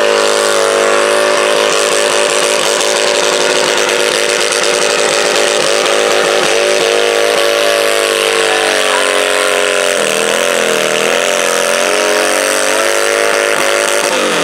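Modified pulling garden tractor's Honda 750 engine running hard at high revs under full load while dragging the weight sled. Its pitch sags and wavers about two-thirds of the way through as the sled bogs it down, then falls away at the very end as the pull finishes.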